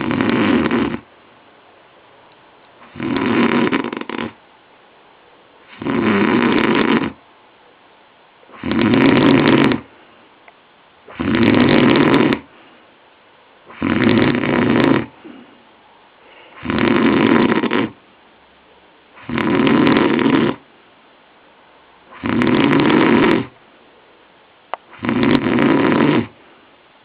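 A sleeping man snoring loudly in a steady rhythm: about ten snores, each a little over a second long, one every two and a half to three seconds. This is the snoring of a man with chronic sleep apnoea.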